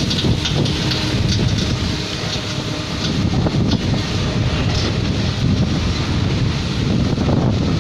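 Kobelco SK75 hydraulic excavator running steadily as it digs, its diesel engine working the boom and bucket, with wind buffeting the microphone.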